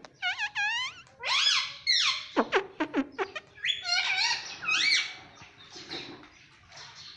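Ring-necked parakeet giving a rapid run of short, high-pitched squawks and chattering calls, each sweeping up and down in pitch, dying away after about five seconds.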